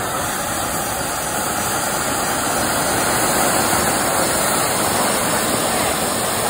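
Cock Brand anar flower-pot fireworks spraying sparks: a loud, steady hissing rush that grows a little louder over the first few seconds.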